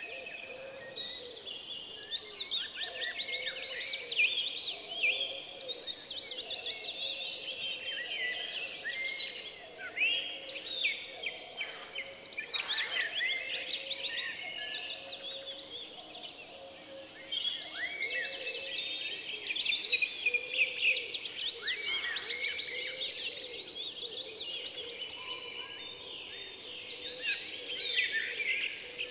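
Many birds chirping and twittering at once, a dense run of quick, high, overlapping notes.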